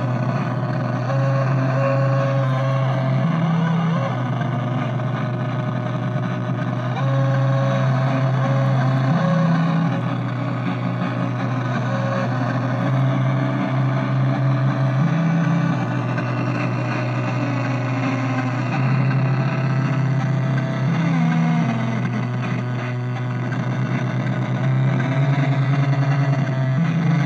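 Dronebird DIY drone synthesizer making a dense, buzzing drone of many wavering tones over a low bass note. The bass note steps up briefly and drops back about every five to six seconds.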